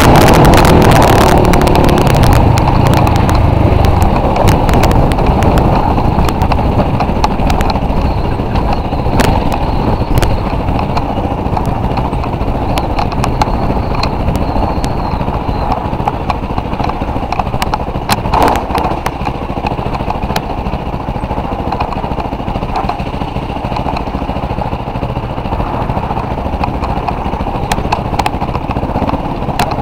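Off-road vehicle engine running as it drives a rough dirt trail, with many small knocks and rattles from the bumpy ground; the sound eases gradually quieter.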